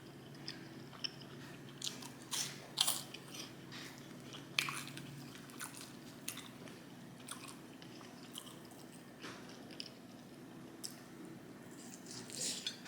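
Close-miked chewing and biting of pizza dipped in ranch: irregular wet mouth clicks and a few louder crunchy bites, the loudest a few seconds in.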